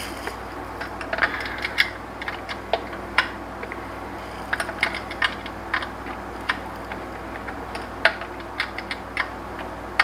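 Irregular sharp metallic clicks and clinks of a hand wrench working on a nut or bolt, sometimes single and sometimes in quick runs of a few.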